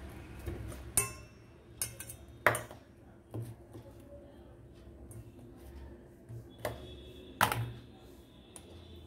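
Stainless steel bowls knocking and clinking against a tabletop as fruit is handled and dates are dropped into a bowl of cut apple and orange: about half a dozen separate short knocks, the loudest near the start and again a little after the middle.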